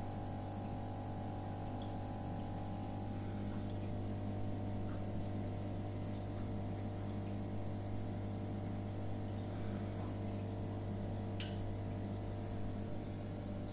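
Steady low hum of running aquarium equipment, with faint water trickling and dripping. A single sharp click comes near the end.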